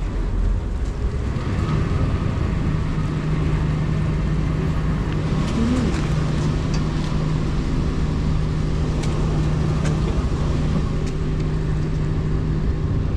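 Steady engine drone: a constant low hum with a steady tone that sets in about a second and a half in.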